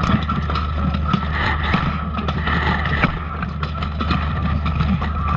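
Steel plate armour clanking and scraping in close grappling, with frequent short metal knocks over a steady rumble of armour rubbing against the chest-mounted camera.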